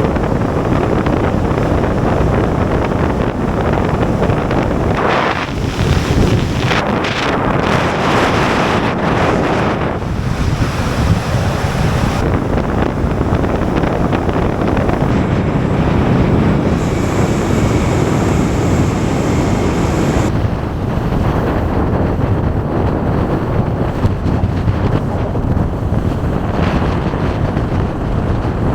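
Loud, steady wind rushing over the microphone of a vehicle moving at road speed, with the rumble of road noise beneath it.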